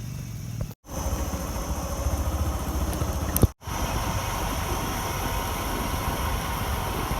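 Bajaj Discover 100's single-cylinder engine running steadily, broken off abruptly twice by short dropouts. There is a sharp click about three and a half seconds in.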